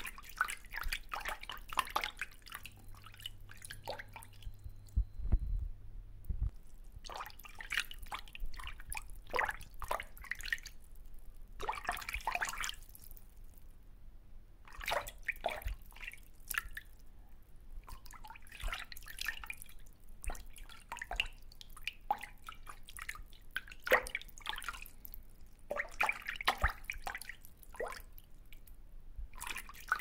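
Pond water dripping and splashing in irregular clusters of small plops and clicks, each lasting a second or two with quieter gaps between. A single low thump comes about five seconds in.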